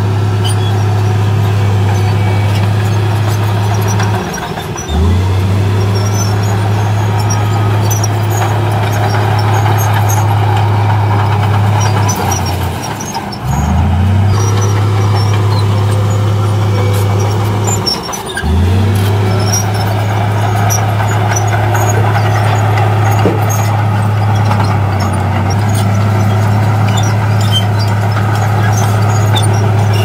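Komatsu D53P crawler bulldozer's diesel engine running hard under load while pushing soil, with clinking from the steel tracks. The engine note drops briefly and climbs back three times: about four seconds in, near the middle, and again about two-thirds of the way through.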